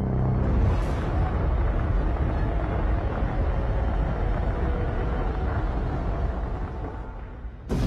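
A dense, low rumbling roar that fades near the end, then a loud, noisy sound starts up suddenly just before the end.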